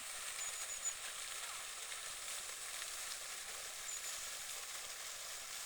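Steady hiss of outdoor background noise, with a quick run of about four very high chirps from a small bird under a second in and another brief chirp about four seconds in.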